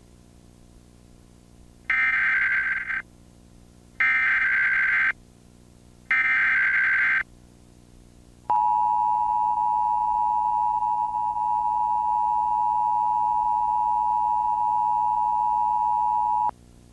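Emergency Alert System tones for a Law Enforcement Warning. About two seconds in come three short bursts of buzzy SAME digital header data, a second each with a second's gap between them; these encode the alert. Then the EAS attention signal, two steady tones sounded together, holds for about eight seconds and cuts off, signalling that a spoken emergency message follows.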